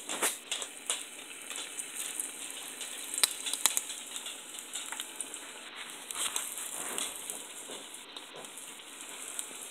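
Floured fish fillet frying in hot oil: a steady sizzle that sets in suddenly as the fillet goes into the oil, with scattered sharp crackles and pops, the loudest in the first four seconds.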